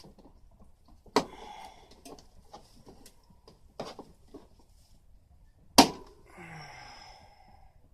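A few sharp clicks and knocks, the loudest about six seconds in, each followed by a short scrape or rattle: hand tools working at stuck screw caps on an old air conditioner's housing.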